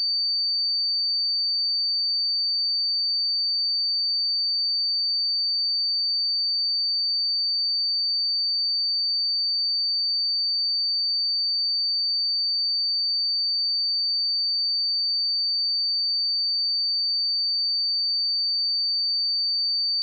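Pure 4591 Hz sine-wave test tone: a single high-pitched steady beep held at constant level, with no other sound.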